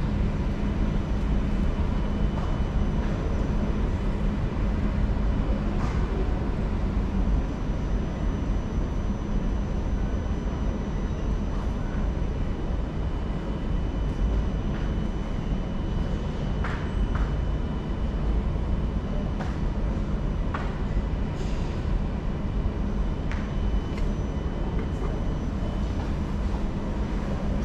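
Singapore MRT train running: a steady low rumble, with a steady hum that stops about seven seconds in and a few faint clicks later on.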